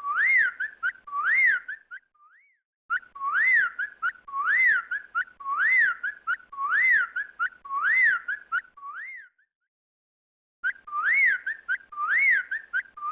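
Bird's whistled call, each note sliding up and back down, repeated in three runs separated by short pauses.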